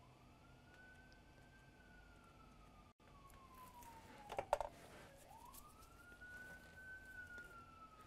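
Faint emergency-vehicle siren on a wail cycle: a single tone that climbs quickly and then sinks slowly, going round twice. A few sharp clicks a little past the middle.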